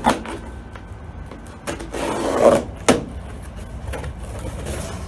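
Cardboard shipping box being slit open with a blade and its flaps pulled up: scraping and rubbing of cardboard, loudest about two seconds in, with a sharp knock at the start and another just before three seconds.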